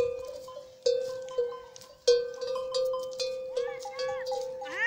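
A camel's metal neck bell clanking irregularly, about two strikes a second, each ring fading before the next, as the camel walks. A few short chirps sound near the end.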